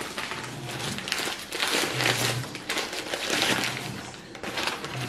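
Paper wrapping around a piece of salmon crinkling and rustling in several bursts as it is unfolded by hand.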